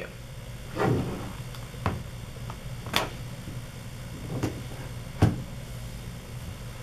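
Handling noise: about five short knocks and clicks as a tablet and a small silicone suction-cup Bluetooth speaker are lifted and moved against a table, the sharpest about three and five seconds in, over a low steady hum.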